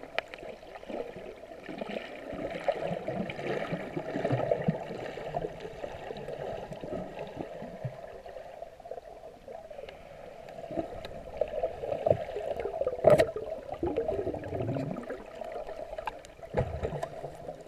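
Muffled sloshing and gurgling of water around a camera held in the sea while snorkeling, with scattered small clicks and one sharp tap about thirteen seconds in.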